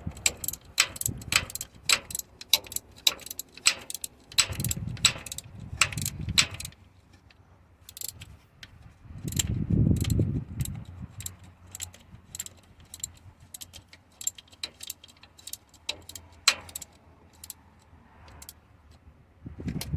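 Ratchet wrench clicking quickly, about four clicks a second, as the power steering pump's mounting bolts on a Detroit 60 Series engine are snugged down evenly. After about six seconds the clicks turn sparse, with a few low rumbles in between.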